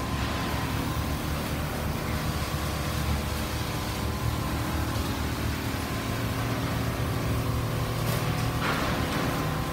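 Industrial quilting machines running steadily on a factory floor: a continuous low mechanical hum with several steady tones under an even machine noise. A brief rushing sound comes near the end.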